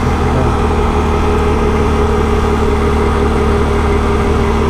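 Can-Am Renegade 1000 ATV's V-twin engine idling steadily.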